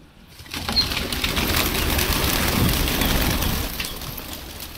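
Wings of a flock of domestic pigeons flapping close by as they fly low over the roof. It is a dense, fast fluttering that swells about half a second in and fades near the end.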